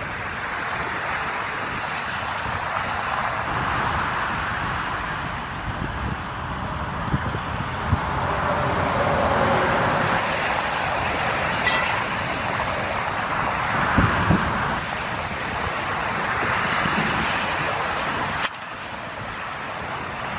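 Heavy vehicle or machinery running as a steady, rough noise, with a few sharp knocks partway through. The sound changes abruptly near the end.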